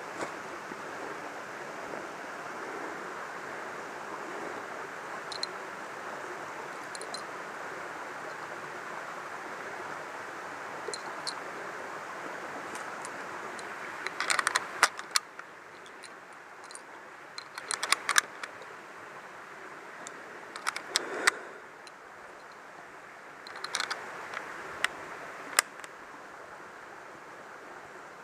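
Steady rush of a small stream running over rocks. From about halfway, short clusters of clicks and rustles from handling and movement close to the microphone come every few seconds, and the rush of water drops a little in level.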